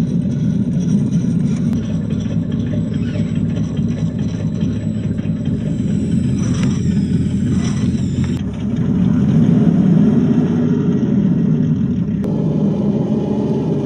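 Scale RC off-road truck's engine sound, a steady low rumble made to sound like a real truck, a little louder from about nine seconds in.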